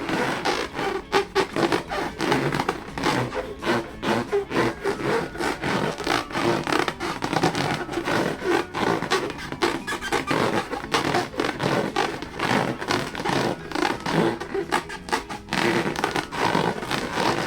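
Inflated rubber balloons being rubbed and squeezed by hand, a rapid, irregular run of rubbing strokes, a few a second.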